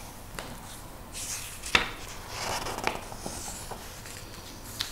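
Glossy magazine page being turned by hand: paper rustling and crinkling, with one sharp crackle a little under two seconds in.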